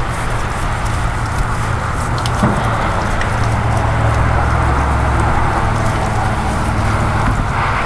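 Water-fed pole brush scrubbing window glass, purified water spraying from the brush head and splashing off the panes, with scattered small clicks over a steady low hum.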